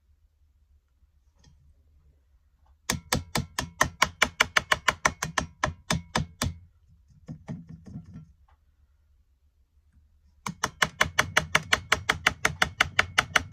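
A utensil knocking rapidly against a container while mixing stiff cheese spread, about five or six sharp knocks a second. There are two runs of a few seconds each, with a pause between them.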